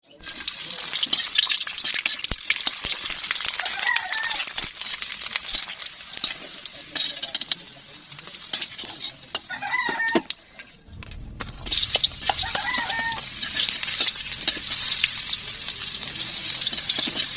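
Food sizzling in hot oil in a pan as it is sautéed, with a utensil clicking against the pan as it stirs. The sizzling breaks off briefly about two-thirds of the way through. A rooster crows in the background about three times.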